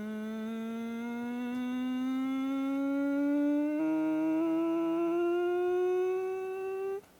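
A man's voice sliding slowly upward in one long hummed glissando, a vocal-creak exercise imitating a plane taking off. A lower tone joins it briefly in the middle. It cuts off about seven seconds in.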